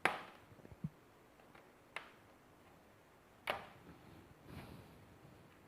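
Plastic clicks and snaps from the Lenovo IdeaPad 100's bottom case as it is pried open with a tool: three sharp clicks at the start, about two seconds in and about three and a half seconds in, with a short low knock just before one second.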